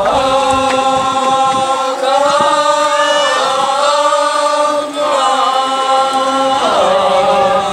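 Mikoshi bearers chanting together in long held notes, phrase after phrase, with short breaks about two, five and seven seconds in.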